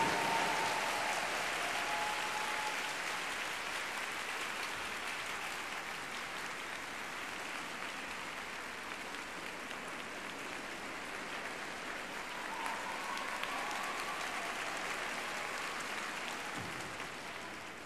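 Arena audience applauding after a figure-skating performance, the applause slowly fading and trailing off near the end.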